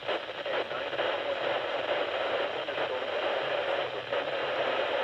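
Steady hiss of radio static from a weakly received station.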